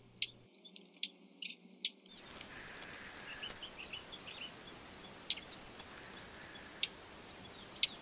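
Faint outdoor ambience of many short bird chirps over a soft hiss, with a few sharp clicks. The first two seconds are nearly quiet apart from the clicks, and the hiss and chirping begin about two seconds in.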